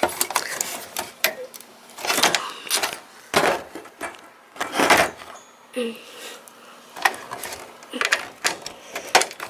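Hands working inside a desktop computer case, pulling cable connectors off the motherboard: irregular plastic and metal clicks with a few louder scrapes, about a second or so apart.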